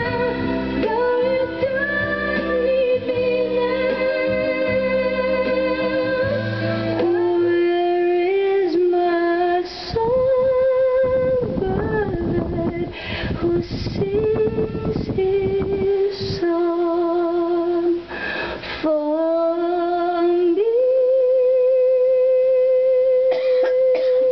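Female vocalist singing a slow ballad with strong vibrato on long held notes, over instrumental accompaniment that thins out about seven seconds in. A single long held note fills the last few seconds.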